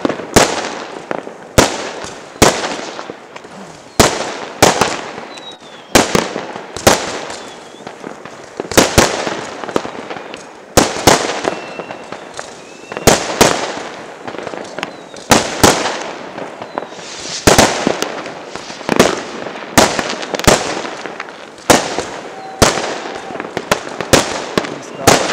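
Aerial fireworks going off in a rapid series of sharp bangs, about one to two a second, each trailing off into crackle, with a few faint whistles among them.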